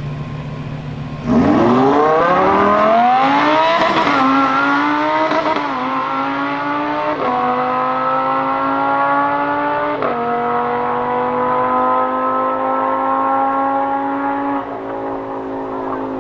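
Lamborghini Huracán LP610-4's V10 idling on the line, then launching at full throttle about a second in. The engine note climbs and drops back at each quick upshift, four or five times, as the car pulls away down the strip.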